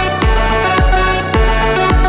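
Background electronic dance music: a deep, pitch-dropping kick drum hits four times, about every half second, under steady synth chords.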